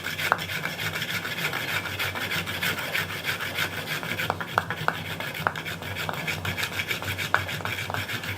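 Fire-roll friction: a board rolled hard back and forth over a tight roll of ash-dusted cotton, making a steady rasping rub with occasional sharper clicks. The rubbing is heating the roll toward an ember.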